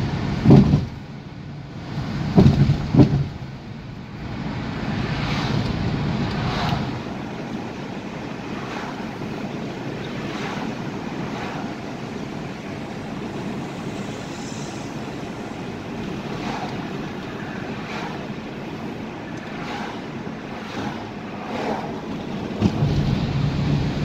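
Road noise inside a moving car's cabin: a steady rush of tyres and wind, with a few low thumps in the first three seconds. The engine's low hum drops away through the middle and comes back louder near the end.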